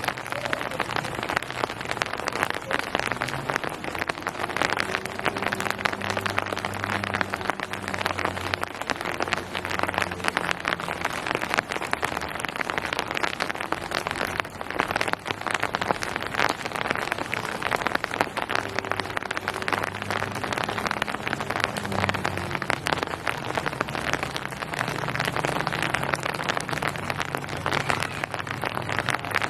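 Steady rain, a dense patter of drops falling on surfaces, with a faint low rumble coming and going underneath.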